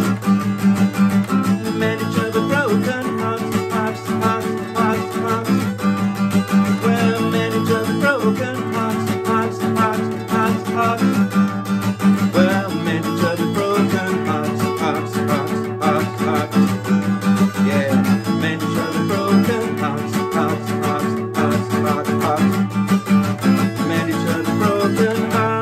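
Acoustic guitar played steadily in a strummed and picked rhythm, an instrumental passage with no singing.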